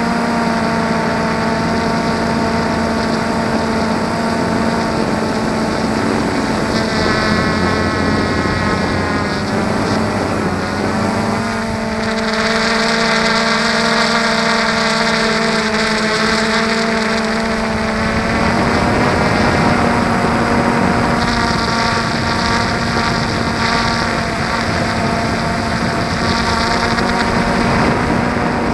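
A drone's motors and propellers, heard from the onboard camera: a steady whine made of several tones that shifts in pitch a few times as the motor speed changes.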